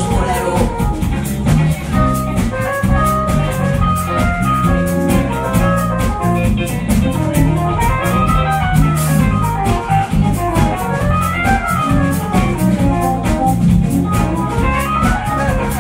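Live jazz band playing an instrumental passage: electric guitar lines over bass guitar and a drum kit keeping a steady beat.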